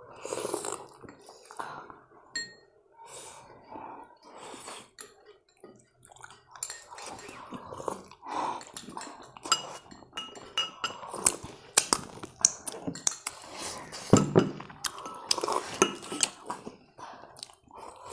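Eating sounds picked up close by a lapel microphone: chewing momos, with repeated sharp clinks of a ceramic spoon and dishware. Near the end, soup sipped from the spoon.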